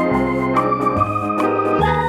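Background music led by an electronic organ-like keyboard, sustained chords over a bass line, with a light steady beat.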